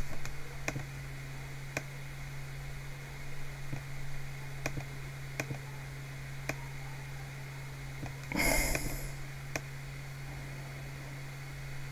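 Quiet computer mouse clicks, about half a dozen spread apart, over a steady low electrical hum, with one short hiss of noise about eight and a half seconds in.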